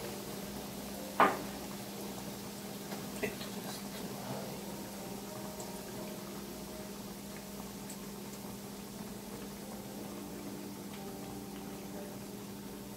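Breaded chicken deep-frying in hot oil in a fryer, a steady sizzle and bubbling over a low steady hum. A single sharp knock about a second in is the loudest sound, with a lighter one about three seconds in.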